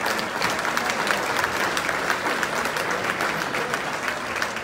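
Banquet audience applauding at the end of a speech, a steady crowd of hand claps that begins to die away near the end.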